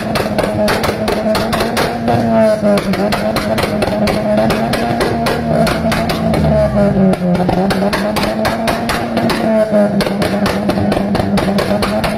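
Car engine held at high revs, bouncing off the rev limiter: a steady drone broken by rapid, irregular pops and crackles of exhaust backfire.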